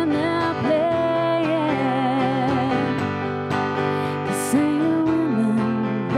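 Two female voices singing a song in harmony, with vibrato on the held notes, over acoustic guitar accompaniment.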